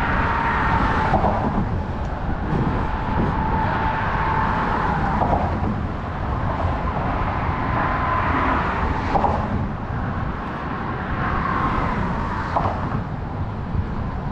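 Steady outdoor noise, a low rumble with a faint whine that drifts and breaks off several times.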